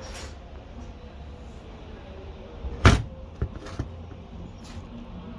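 Hand tools knocking and clicking against a removed car starter motor while its solenoid is being unbolted: one sharp knock about three seconds in, then a few lighter clicks, over a steady low rumble.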